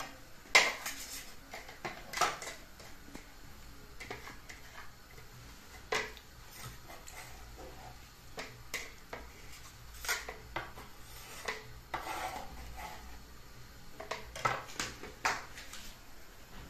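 Kitchen knife knocking on a wooden chopping board, with utensils clattering, while tomatoes are cut and handled: scattered, irregular sharp knocks rather than a steady chopping rhythm.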